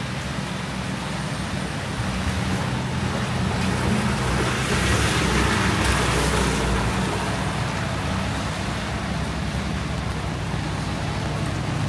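Road traffic on a rain-wet city street, a steady rumble with a vehicle passing about halfway through, its tyres hissing on the wet road.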